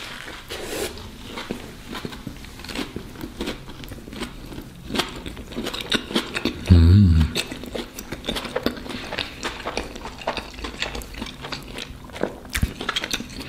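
A person biting into and chewing a toasted sandwich of fried sausage, tomato and pickle, with many small crunches and wet mouth sounds close to the microphone. About seven seconds in there is a brief low hum of the voice.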